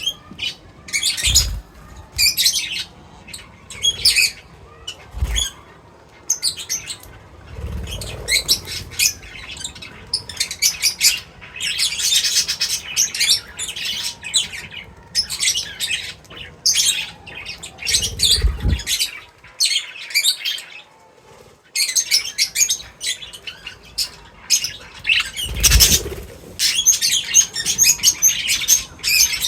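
Small birds chirping in quick, busy bursts of short high notes, with a brief lull past the middle. Several dull low thumps sound among the chirps.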